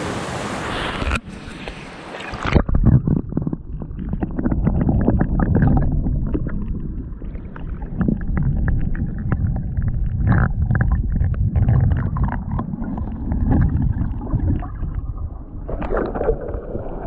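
Creek water heard from under the surface: a muffled rushing and gurgling, heavy in the lows, with many small clicks and knocks. The open rushing sound of the stream above water plays for about the first second and returns near the end.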